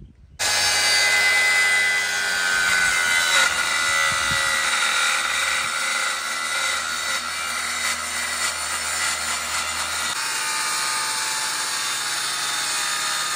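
Electric saw ripping a wooden board lengthwise into a narrow strip, starting suddenly just after the start and running steadily with a high whine over the cutting noise; the low hum drops away about ten seconds in.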